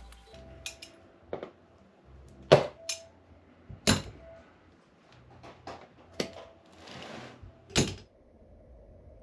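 A series of sharp clicks and knocks, about half a dozen distinct ones, with a brief hiss about seven seconds in.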